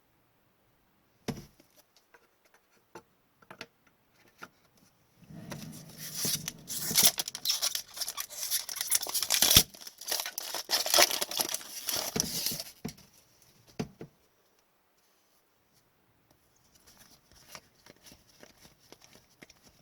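A hockey card pack wrapper being torn open and crinkled: a loud crackling stretch of about eight seconds, with a sharp click shortly before it and faint light card-handling clicks near the end.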